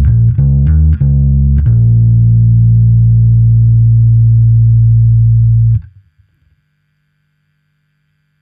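Short-scale electric P-bass played through a Gallien-Krueger MB150 bass amp and cab simulation: a few quick plucked notes, then one long low note held for about four seconds. The note is cut off abruptly, leaving near silence with a faint hum.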